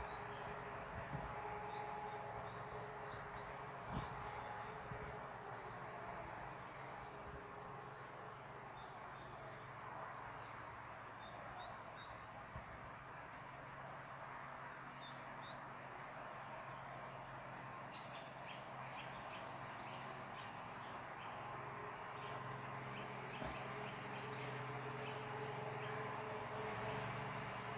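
Small birds chirping repeatedly over a faint, steady outdoor background hum.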